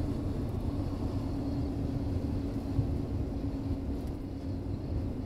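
Steady low rumble of a running engine with a constant droning hum, and one brief knock about three seconds in.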